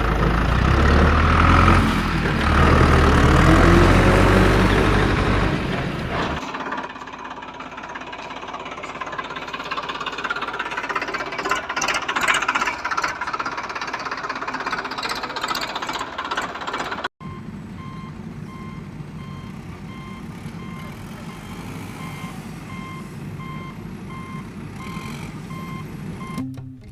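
Heavy-vehicle engine running. After a sudden cut partway through, a steady engine rumble with an evenly repeating beep like a reversing alarm.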